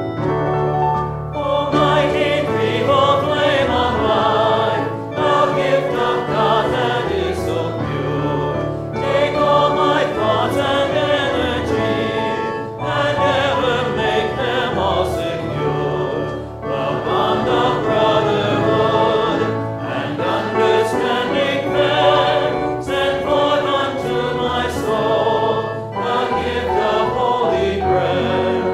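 Choir singing a hymn in English, line by line, with short breaks between phrases every few seconds.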